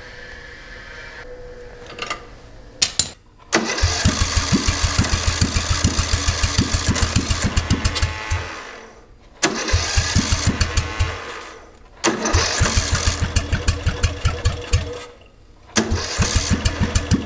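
Small riding-mower engine being cranked over by its electric starter in four bursts of rapid, even chugging, with a few sharp clicks just before the first. It turns over but does not catch.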